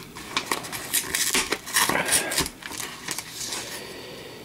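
Cardboard mailer and a paper envelope being handled and pulled open: a quick run of crackles, rustles and light taps that goes quieter after about three seconds.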